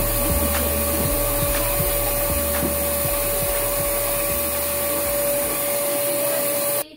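Canister vacuum cleaner running steadily with a high whine as it is pushed over carpet; it cuts off abruptly near the end.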